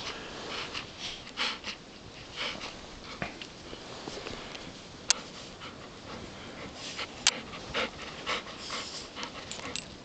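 Golden retrievers panting as they wade through deep snow, with irregular rustling and crunching throughout. A few sharp clicks stand out, about halfway through and again a couple of seconds later.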